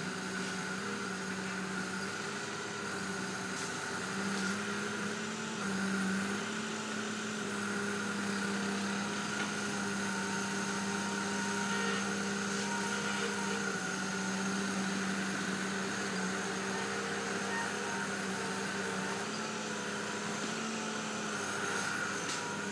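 Heavy-equipment diesel engine running steadily under work. Its pitch lifts briefly twice, about five seconds in and again near the end, as the revs rise.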